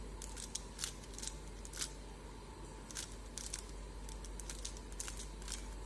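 A speed cube being turned by hand through a short sequence of moves: quick, light clicks of the layers turning, in irregular clusters, over a steady low hum.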